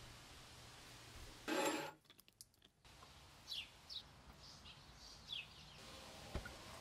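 Faint songbird chirps outdoors: a few short, quick calls falling in pitch. A short burst of noise about one and a half seconds in is louder than the calls.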